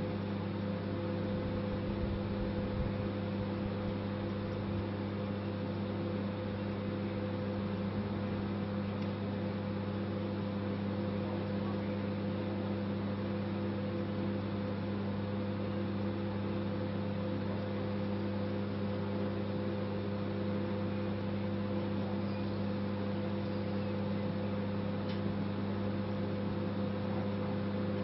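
Microwave oven running with a steady, even hum.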